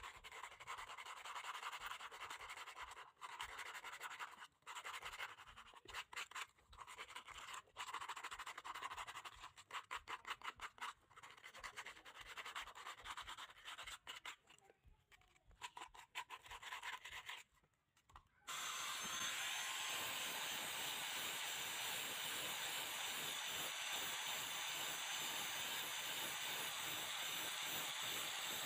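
Rapid back-and-forth hand scrubbing of a rusty steel rod, in uneven runs of quick strokes with short pauses. About two-thirds of the way through it gives way to an angle grinder with a polishing disc starting up and running steadily, with a thin high whine.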